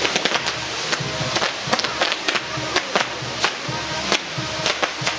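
Fireworks on a burning castillo tower: a rapid, irregular string of sharp bangs and crackles, several a second, over a steady hiss, with a band playing underneath.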